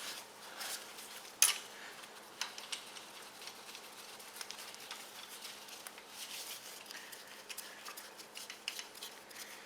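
Light clinks and rattles of small metal parts and hand tools being handled, with a sharper click about a second and a half in.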